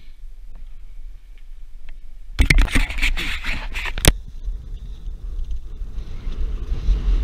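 Quiet at first, then about two and a half seconds in, a mountain bike riding fast down a dirt trail: wind rumbling on the microphone, tyres crunching over dirt and gravel and the bike rattling, with one sharp click about four seconds in. After that a steady high whir runs under the wind and tyre noise.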